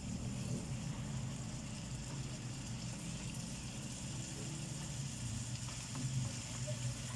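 A steady low mechanical hum, with the faint sizzle and scraping of chicken gizzards being stir-fried in a frying pan with a wooden spatula.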